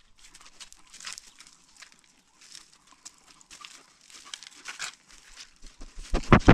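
African wild dogs sniffing and stepping around a GoPro on the ground: a run of small crackles and rustles of dry leaves and soil right at the microphone. In the last half-second come a few loud, deep knocks as a dog's muzzle bumps and mouths the camera.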